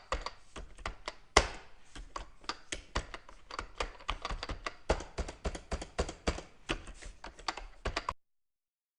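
Fast typing on a computer keyboard: a dense, irregular run of key clicks with one louder keystroke about a second and a half in. The typing cuts off suddenly near the end.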